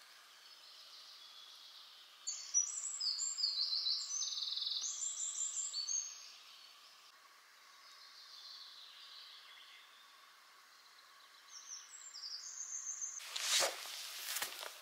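A small songbird sings in two bursts of quick, high, trilling notes over a faint steady background hiss. A few loud rustling knocks come near the end.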